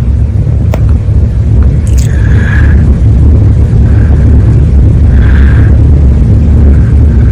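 A loud, steady low rumble, with one faint sharp click a little under a second in.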